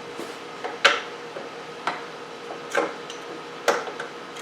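A few sharp metallic clicks and clinks, about one a second, as a steel kickstand, bolt and hand tools are handled on a motorcycle frame.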